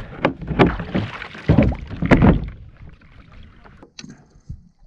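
Water splashing and slapping around a fishing kayak's hull, with several loud sudden splashes and knocks in the first two and a half seconds, then quieter lapping with a single click about four seconds in.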